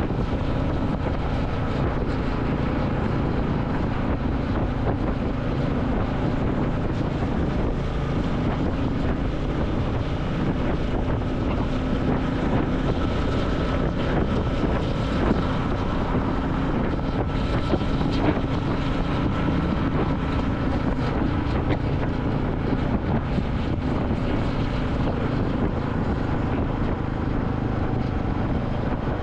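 Royal Enfield Classic 350's single-cylinder engine running steadily while riding, with wind noise on the microphone.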